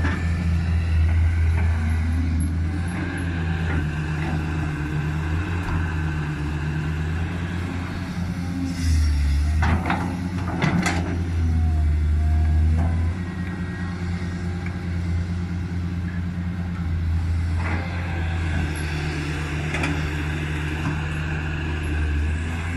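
Caterpillar 320C excavator's diesel engine running under working load, its low drone swelling and easing as the machine digs. A few sharp knocks come about ten seconds in.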